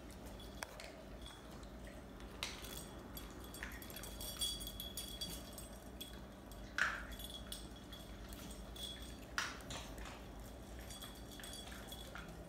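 Small dogs moving about on a tile floor: scattered light clicks and clinks, the sharpest about seven seconds in.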